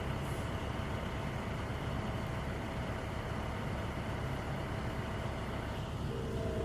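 Heavy engine running steadily at low revs, a continuous low rumble; about six seconds in a steady higher-pitched whine joins it.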